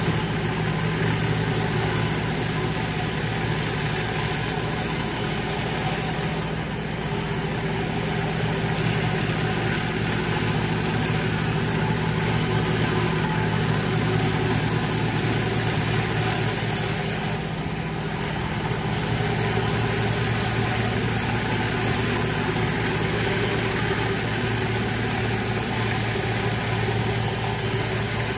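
Pressure washer's engine running steadily under load, with the continuous hiss of high-pressure water spinning out of a rotary flat surface cleaner onto wet stone paving.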